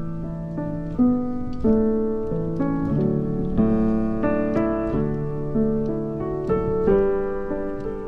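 Background piano music: single notes and chords struck one after another, each fading after it is played.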